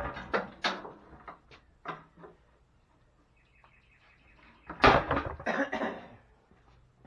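Split firewood pieces knocking and clattering together as they are handled, in two bursts: one at the start and another about five seconds in.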